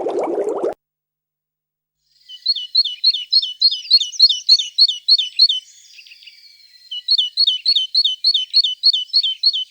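A songbird singing two phrases of quick, high, repeated two-part notes, about three or four a second, with a short pause between the phrases. Before the song, a coarse, noisy sound cuts off suddenly within the first second.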